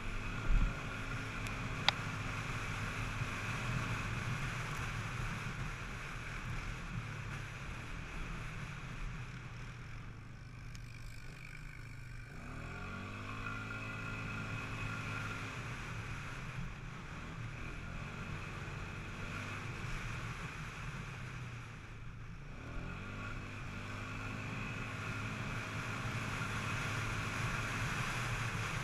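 Polaris Scrambler 500 4x4 H.O. quad's single-cylinder four-stroke engine running under way. It eases off twice, near the middle and about three-quarters through, and each time rises in pitch again as the throttle reopens. A sharp knock and a click near the start.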